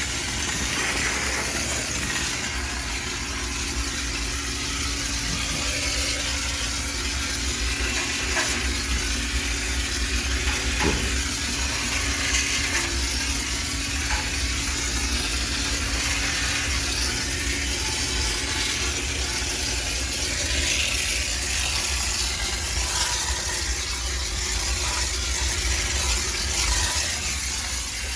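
High-pressure steam cleaner jetting steam to sterilize a laundromat washing machine: a steady hiss over a low rumble.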